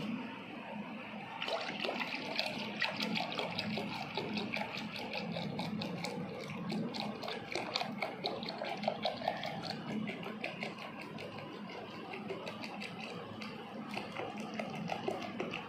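7-Up soda pouring steadily from a plastic bottle into a steel bowl of milk, splashing and fizzing with a fine crackle of bubbles. It starts about a second and a half in.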